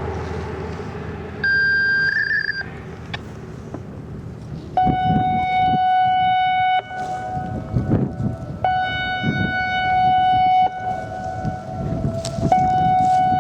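Electronic speaker warning siren (an I-Force) sounding a hi-lo tone during its weekly test, with steady higher and lower pitches alternating about every two seconds from about five seconds in. A short high beep comes about a second and a half in.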